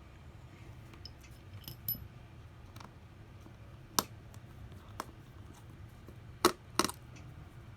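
Light clicks and taps of small metal tools and tiny screws on an iPhone SE's internal parts as its screws are fitted one by one: about five sharp clicks scattered through, the last two close together and loudest, over a faint steady low hum.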